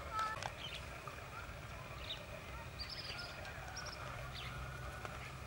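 Birds chirping now and then in short high notes, over a steady low background hum.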